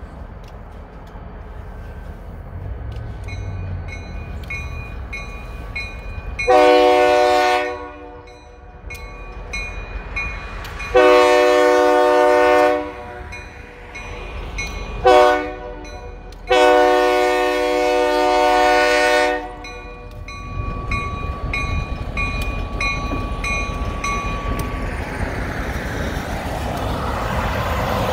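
EMD SD40 freight locomotive's air horn sounding the grade-crossing signal: two long blasts, a short one, and a final long one, with a bell ringing steadily behind it. Near the end a passing semi-truck's road noise builds up.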